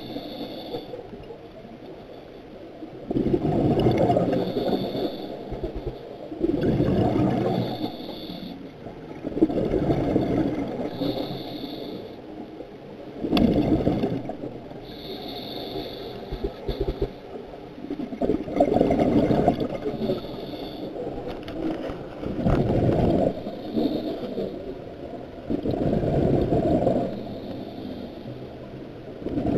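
Scuba diver breathing through a regulator underwater: a rush of exhaled bubbles every three to four seconds, with a thin regulator hiss during some breaths.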